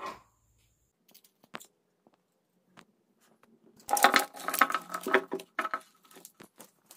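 Fishing tackle being handled and packed: a few light clicks and taps, then from about four seconds in a burst of crinkling and rattling as a small plastic blister pack of tackle is handled, tailing off into scattered clicks.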